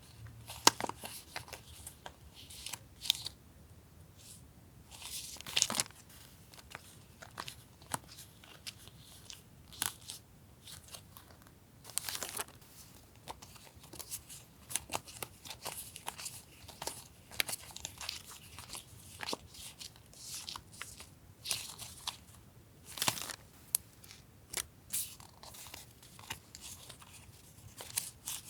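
Paper goods and their packaging being handled: irregular rustling and crinkling with light taps and clicks.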